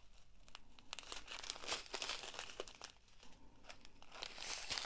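Plastic bags of square acrylic diamond-painting drills crinkling as they are handled, quiet and irregular, growing louder near the end.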